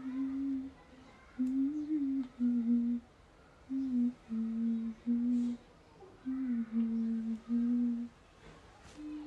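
A person humming a tune with closed lips in short held notes that step up and down in pitch, with brief pauses between phrases.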